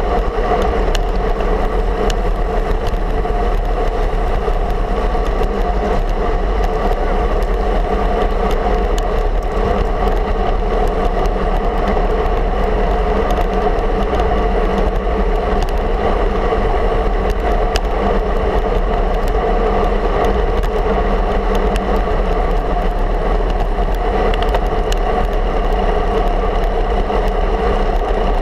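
Steady wind and road noise on a camera carried by a road bike rolling along asphalt: an even, constant rush with no changes.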